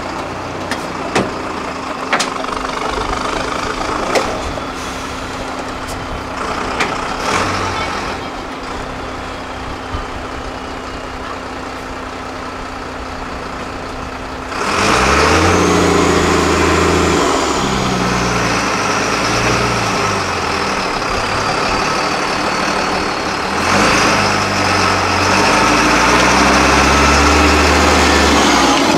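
Diesel engine of a 6x6 MAN trial truck running low with a few sharp knocks, then about halfway revving up hard and staying loud under load as it crawls through deep mud ruts. A high whine rises and falls over the engine once it is under power.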